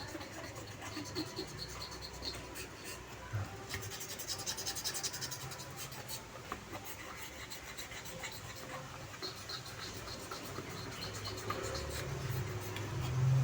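Brush scrubbing a circuit board wet with thinner: a run of fine, dense scratching strokes, busiest a few seconds in, over a faint low hum.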